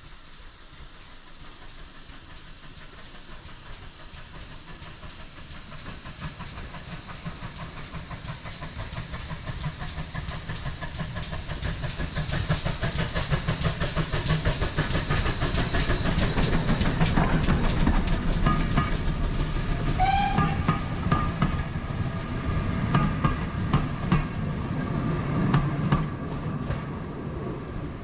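GWR 57xx-class pannier tank steam locomotive 7714 approaching and passing with a train of coaches. Its exhaust beats grow steadily louder to a peak about two-thirds of the way through. A short rising squealing tone about twenty seconds in, then thin high ringing tones and wheel clatter as the coaches go by.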